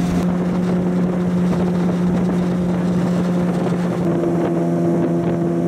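Outboard motor running at speed, driving an aluminium boat upriver, with the rush of water and wind over the microphone. The engine note shifts a little lower about four seconds in.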